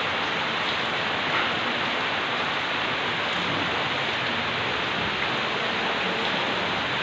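Steady heavy rainfall, a dense even hiss with no letup.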